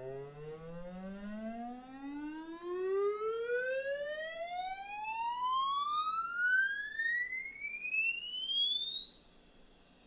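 A single tone with several overtones, rising steadily and smoothly in pitch from low to high, played through the Chelco STR-550 boombox's speakers: a frequency-sweep test tone.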